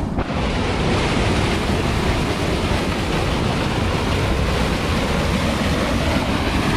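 A powerful upwelling of water boiling up at a lake's surface, gushing and churning in a loud, steady rush.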